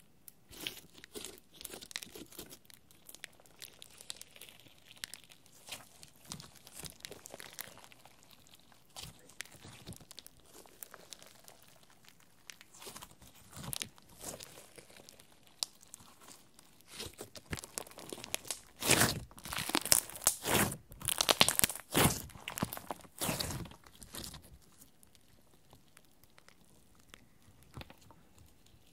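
Glitter-filled slime squished, folded and kneaded by hand: sticky clicks, pops and crackles. They are busiest and loudest for a few seconds about two-thirds of the way in, then fade to faint sounds near the end.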